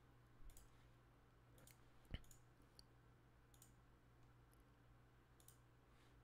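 Faint computer mouse clicks, about half a dozen scattered ones with the loudest about two seconds in, over near-silent room tone with a faint low hum.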